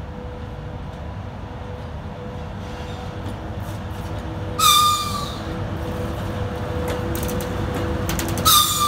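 VL80S electric locomotive hauling a freight train as it approaches and passes close: a steady hum over a rumble that grows louder as it nears. It gives two short high-pitched whistle blasts, the first about halfway through and a shorter one near the end.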